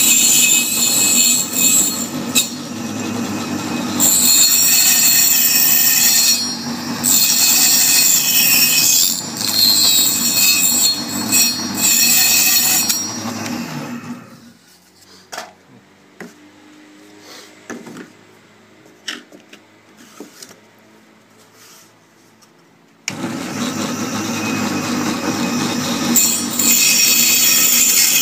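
A machine running loudly with a high-pitched squeal. It winds down about halfway through, leaving faint clicks, and starts up again about eight seconds later.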